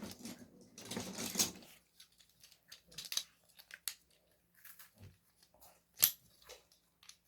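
Crisp cheese crackers being bitten and chewed close to the microphone: irregular crackly crunches, the longest about a second in, with a few sharp snaps later.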